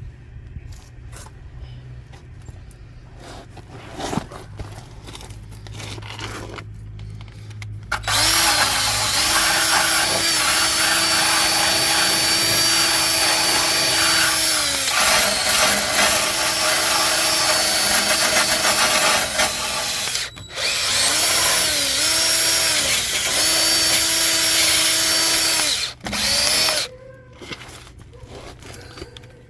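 A handheld electric power tool running in long spells, its motor whine spinning up at each start and winding down at each stop, under a harsh scraping hiss. It starts about eight seconds in, stops briefly about twenty seconds in, and runs again until near the end.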